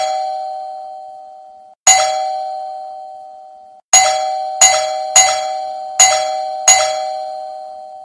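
Electric doorbell ringing: each strike rings out in a clear two-note tone that fades slowly. Two single rings about two seconds apart, then a quicker run of four more rings less than a second apart.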